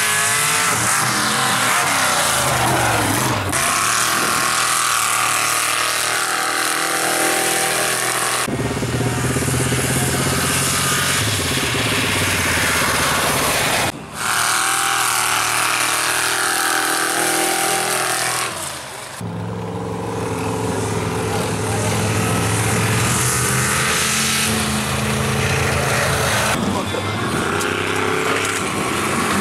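Big-block mud trucks' engines revving hard as they launch and run down a dirt drag strip. The engine pitch climbs and drops through each run, and the sound cuts abruptly from one truck's run to the next several times.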